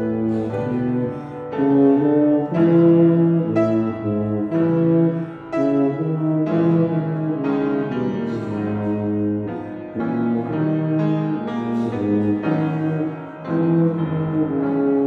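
Solo tuba playing a melody of sustained notes with piano accompaniment, with brief breaks between phrases.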